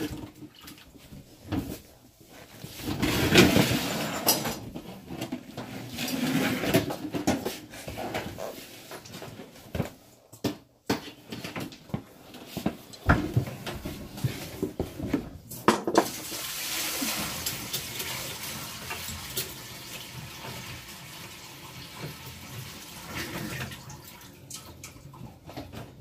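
Water splashing and draining as the descaling hoses are disconnected from a tankless water heater, with scattered knocks and clanks of fittings through the first half, then a steadier hiss of running water.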